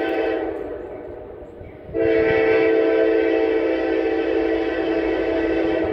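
Nathan K5LA five-chime air horn on a Norfolk Southern AC44C6M locomotive blowing for the crossing: one blast cuts off about half a second in, then a long steady blast starts about two seconds in and holds.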